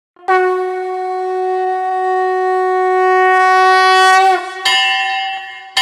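Conch shell (shankha) blown in one long steady note that sags in pitch as it ends, followed by a shorter, higher blast.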